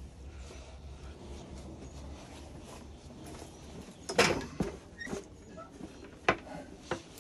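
Several sharp knocks and light clatter about four to seven seconds in, as the metal tubing of a carried metal-legged stand bumps while being handled, over a low steady hum.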